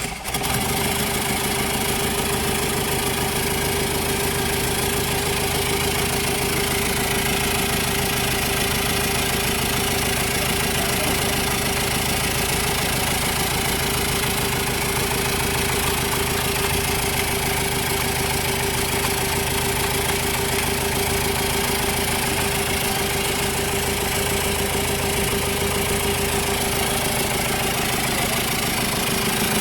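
Chevrolet Tavera engine idling steadily on its first run after a full engine overhaul, just after starting up.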